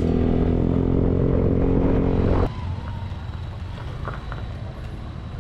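Honda ADV 160 scooter's single-cylinder engine running at a steady speed, then an abrupt drop about two and a half seconds in to a quieter, steady low rumble.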